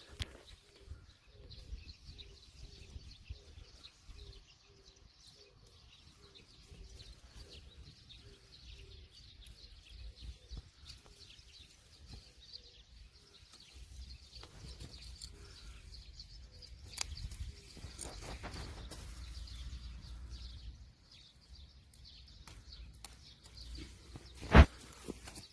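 Outdoor farm-field ambience: wind rumbling on the microphone under a faint even hiss, and a bird repeating a short low note about twice a second for the first ten seconds or so. A few sharp clicks are heard, the loudest near the end.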